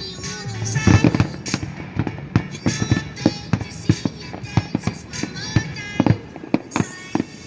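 Fireworks bursting in rapid, irregular succession, loud bangs a fraction of a second apart, with music playing underneath.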